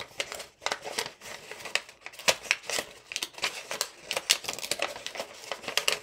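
Sheet of origami paper being opened, pressed and creased by hand, with irregular crisp crinkles and crackles.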